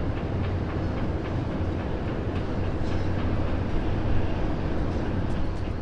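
Distant city and harbour ambience heard from a high observation deck: a steady low hum and rumble under a dense, even wash of noise, with faint scattered clicks.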